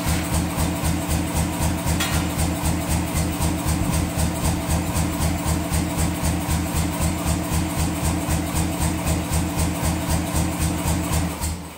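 Shop power hammer idling, its motor humming with a steady rhythmic chuffing of a few beats a second, then switched off and running down near the end.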